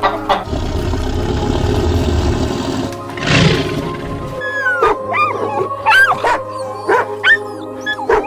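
Animal calls over steady background music: a rough, noisy stretch with a loud burst about three seconds in, then a run of short, sharp high calls that bend in pitch.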